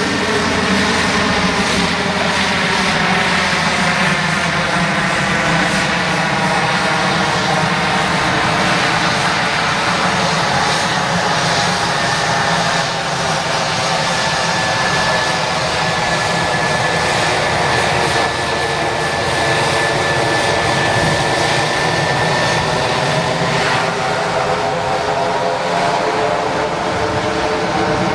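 Beechcraft King Air's twin Pratt & Whitney PT6A turboprop engines running at low power as the aircraft taxis past: propeller drone and turbine whine. The engine pitch sags and rises slightly as it passes, and a steady high whine stands out through the middle.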